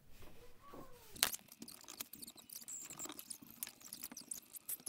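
Small pet scrabbling about: rapid light claw clicks and scratching, with one sharper click about a second in.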